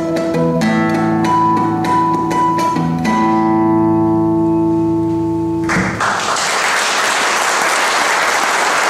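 Solo classical guitar playing the last notes of a piece, ending on a chord left to ring for about three seconds. Just as it dies away, about six seconds in, the audience breaks into steady applause.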